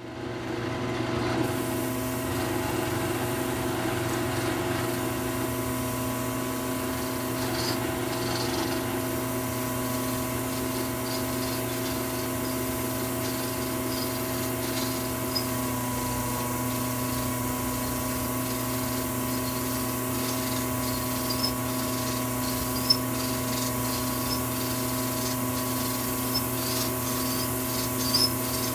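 Drill press running steadily while a small cutter surfaces an aluminium amplifier heatsink fed on a cross-slide vise, with light scraping and small ticks of chips over the motor hum. The heatsink is being flattened so the transistors will sit flat on it. The hum's tone shifts about halfway through.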